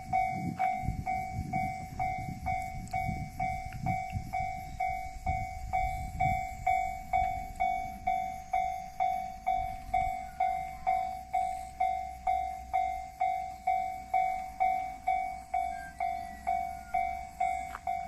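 Japanese railway level-crossing warning bell ringing, one ringing tone repeated evenly about twice a second. A low rumble runs beneath it for roughly the first six seconds, then fades to a faint hum.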